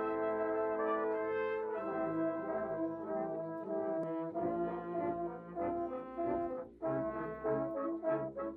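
Background music played by brass instruments, horn and trombone-like, in chords: long held notes at first, then shorter, separate notes from about halfway through.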